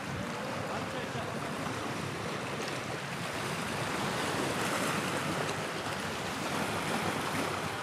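Steady wash of sea water and wind, an even rushing noise with wind buffeting the microphone.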